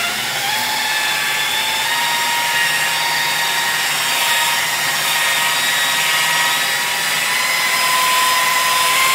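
Hitachi rotary polisher running under load with a denim pad on car paint during a compound leveling pass: a steady motor whine that climbs a little in pitch and steps up again near the end.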